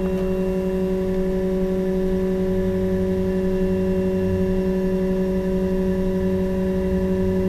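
UP BOX 3D printer's Z-axis stepper motor driving the print platform upward at constant speed: a steady, even whine of one pitch with overtones.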